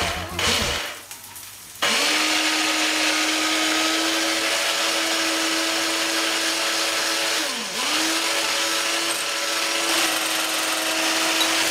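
Electric hand mixer beating egg whites to stiff peaks in a glass bowl. The motor starts about two seconds in with a steady whine, sags in speed and picks back up about two-thirds of the way through, then runs on steadily.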